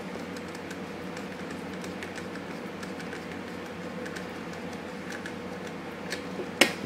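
Hand screwdriver driving a very small screw into a mini quadcopter frame: faint light ticks and scrapes, with one sharp click near the end, over a steady background hum.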